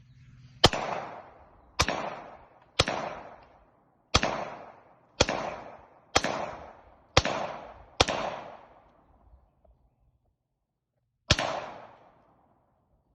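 Nine rifle shots from a Diamondback DB15 AR-style rifle, fired at about one a second, with a longer pause before the last one; each shot trails off in a rolling echo.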